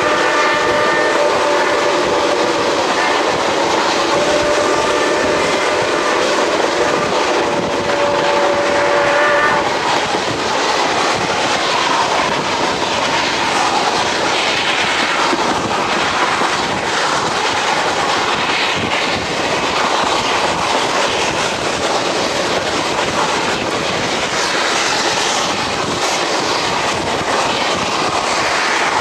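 Steam locomotive whistle sounding one long blast of several steady notes at once, ending about nine seconds in. After it, the coaches rolling over the rails, a steady rushing with a light clickety-clack.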